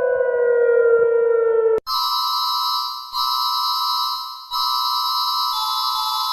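Electronic emergency-alert tones. A siren-like tone falls slowly in pitch and cuts off abruptly about two seconds in. A steady, shrill multi-tone alert signal follows and breaks off briefly twice.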